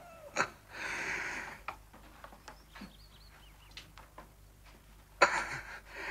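A man's harsh, noisy gasps, the strained breathing of someone in the throes of sickness. There are two heaves, one about a second in and a louder one about five seconds in that starts sharply, with faint clicks between them.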